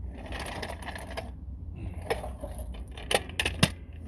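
Metal pieces clinking and clattering as they are handled: some rustling and scraping, then a few sharp clinks near the end.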